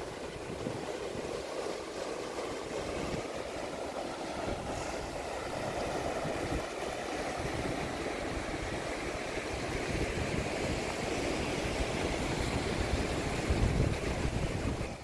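Ocean surf breaking and washing over a rocky shoreline, with wind rumbling on the microphone, strongest near the end.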